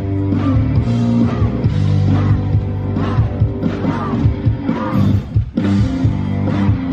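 Rock band playing live: electric guitars and drums, with a brief dip in the music about five and a half seconds in.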